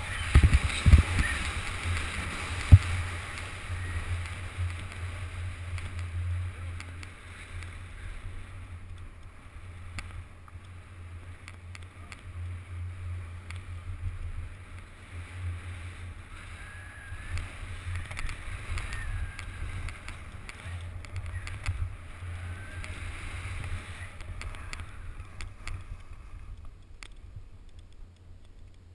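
Skis hissing and scraping over groomed snow under a steady low wind rumble on an action-camera microphone, with a few sharp knocks in the first few seconds. The snow hiss is loudest at the start and grows softer later.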